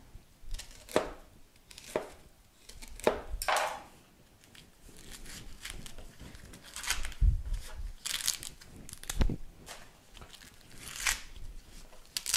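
Husks being torn and peeled off a fresh ear of corn by hand, in irregular rips and crackles. Two dull knocks come about seven and nine seconds in.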